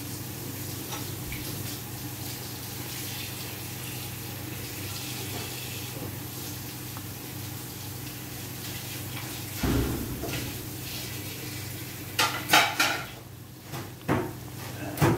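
Chicken and mixed vegetables frying in a metal pan, a steady sizzle over a low hum. A wooden spatula knocks against the pan about two-thirds of the way in, then clatters and scrapes against it several times near the end.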